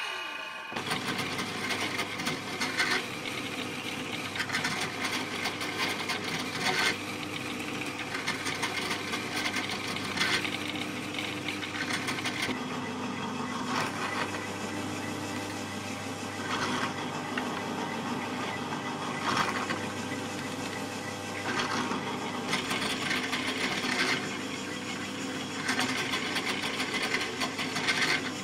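Drill press motor running steadily while the bit is fed into a wooden batten again and again, each hole a short burst of cutting noise every few seconds.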